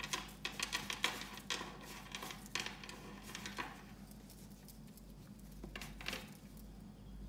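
Hands rolling and patting soft chocolate chip cookie dough into small balls on a floured wooden board: a quick run of soft pats and taps, thinning out after about four seconds to a few more pats near the end.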